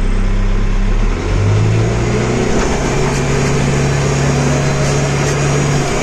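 JCB backhoe loader's diesel engine heard from inside the cab, running steadily, then revving up about a second in and holding the higher speed under load as it pushes a stuck water tanker.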